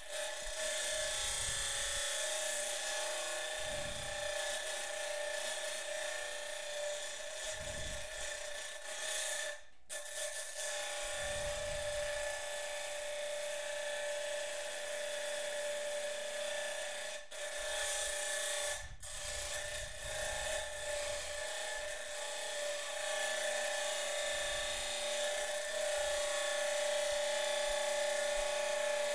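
Abrasive cut-off wheel on a Baldor 1700 RPM buffer motor grinding the profile of a steel knife blank. A steady whine and grinding hiss runs through, with short breaks about ten seconds in and again near 17 and 19 seconds.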